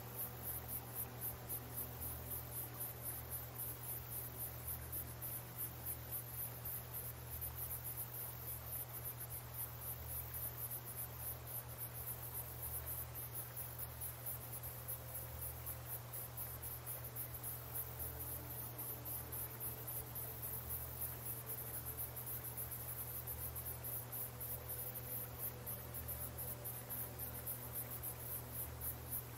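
High-pitched insect chorus chirping in rapid, steady pulses, over a constant low hum.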